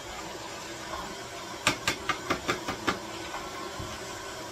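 Stand mixer's motor running with a rotary slicer/shredder attachment as zucchini is pushed through to be shredded: a steady mechanical hum, with a quick run of sharp clicks from about one and a half to three seconds in.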